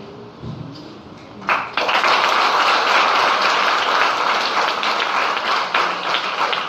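Audience applauding. The clapping starts suddenly about a second and a half in and keeps going steadily.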